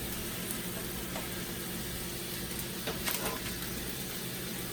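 Steady sizzling hiss of chicken frying in a pan, with a few light clicks of a utensil a little after halfway.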